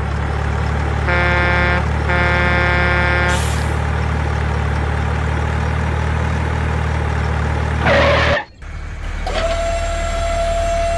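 Truck sound effect: a diesel truck engine running with a low rumble, its horn honking twice about a second in. Near eight seconds a short hiss like an air brake, then the sound cuts and another engine sound with a steady whine takes over.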